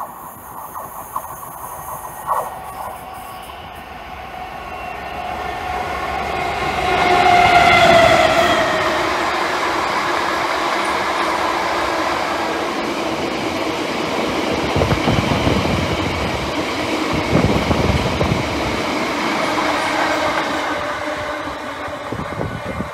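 Diesel freight locomotive approaching and passing close by, its engine note falling in pitch as it goes past about eight seconds in. It is followed by the steady rumble and clatter of a long rake of loaded box wagons rolling by, with a few clunks from the wagons.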